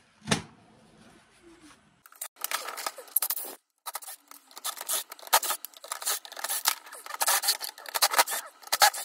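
Cordless drill-driver backing screws out of a Ryobi cordless circular saw's housing, running in bursts with rasping, clicking screw noise from about two seconds in. A single knock comes just after the start.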